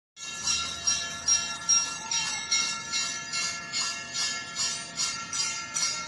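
Temple bells rung in a steady rhythm, about two and a half strikes a second, their high ringing tones overlapping one another.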